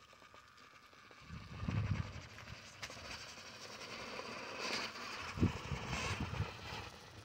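Small electric motor and drivetrain of an RC rock crawler whining as it climbs rock, with low rumbling bumps about two seconds in and again near the end, and a sharp click around three seconds in.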